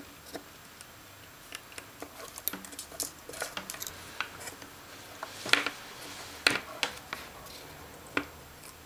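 Light, irregular clicks and taps of a small circuit board and component leads being handled on a table during soldering, with two sharper clicks a little past the middle.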